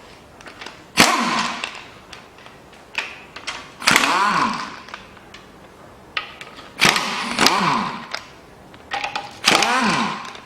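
Cordless power tool with a socket running in four short bursts of about a second each, spinning out the bolts of the engine's front timing cover. Its whirr dips and recovers in pitch as each bolt loosens.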